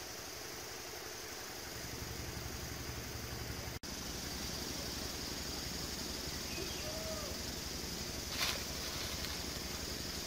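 Steady high-pitched drone of insects, with a low rumble underneath from about two seconds in. About eight seconds in comes a brief scuff of bare feet on stones.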